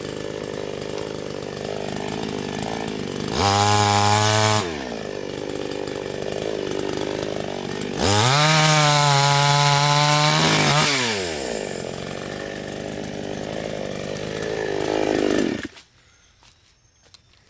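Homdox CS5200 52cc two-stroke chainsaw running, revved up to high speed twice and dropping back to lower revs in between, then cutting off suddenly near the end.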